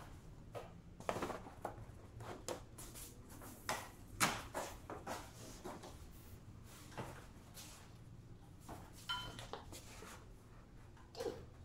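Large flexible boards being handled: scattered taps, knocks and rustles as they are pulled apart, bent and lifted.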